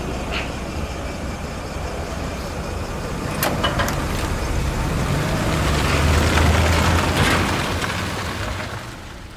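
A small hatchback car's engine running and pulling away, passing close by, loudest about six to seven seconds in and fading toward the end. A couple of short clicks sound about three and a half seconds in.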